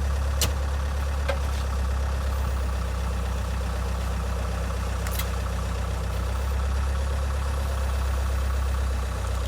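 An engine idling steadily, with a few short, sharp metallic clicks about half a second, a second and a half, and five seconds in.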